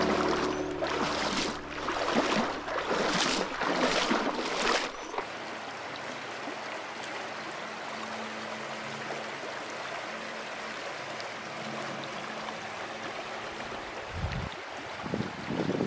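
Music with a beat for about five seconds, cutting off abruptly. Then the steady rush of a shallow river running over stones, with a few dull low thumps near the end.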